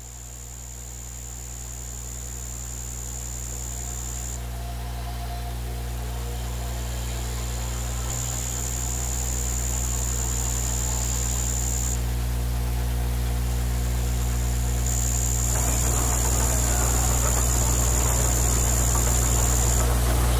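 Low, steady mechanical hum fading in over the first several seconds, with a thin high whine that cuts in and out three times. A rougher hiss joins about three quarters of the way through.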